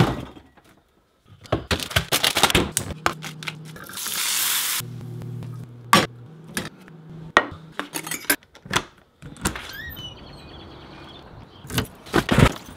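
Kitchen clatter: a string of clicks and knocks of dishes, a pan and a door, with a short burst of hiss about four seconds in, under soft background music.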